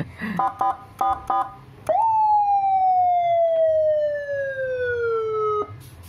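Senken CJB100BDI 100-watt electronic siren played through a YD100i 100-watt horn speaker. A quick run of short beeps comes first, then one wail tone that jumps up and slowly falls in pitch for about four seconds before cutting off suddenly.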